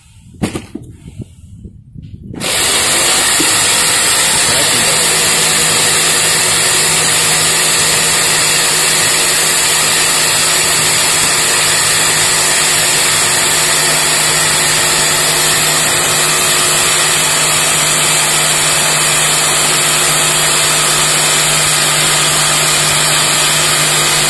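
Electric jigsaw starting up a little over two seconds in, then running steadily as it cuts along a line through a board. A single sharp knock comes shortly before the saw starts.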